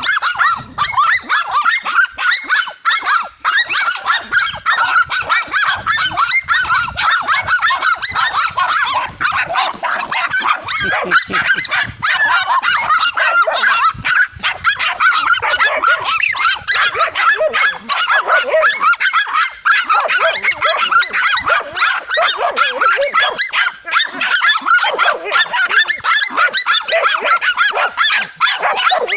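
A pack of dogs barking and yapping without a break, many short overlapping barks at once, as they hold a cornered lizard at bay.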